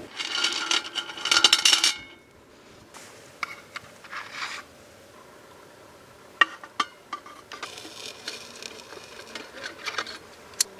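Camp-cooking gear being handled: about two seconds of loud metallic clattering with a little ringing, then scattered sharp clinks and light rustling.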